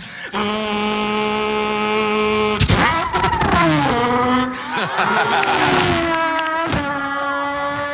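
A man imitating a Formula 1 racing car with his voice. He holds steady engine-like notes that break and slide to a new pitch several times, like gear changes, with a rising-and-falling sweep in the middle.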